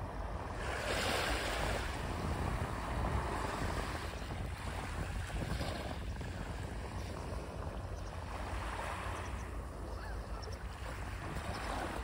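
Small waves washing up on a sandy shore in gentle swells, with wind rumbling on the microphone.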